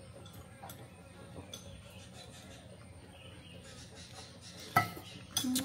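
Quiet background with faint small ticks, then near the end a sharp clink of a spoon against a dish with a brief ring, and a lighter knock just after.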